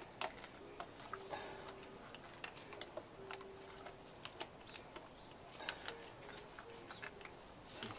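Irregular light clicks and taps of plastic and metal parts being handled: fuel injectors, fuel rail and wiring connectors being fitted back into a Mini Cooper S R53's intake manifold by hand.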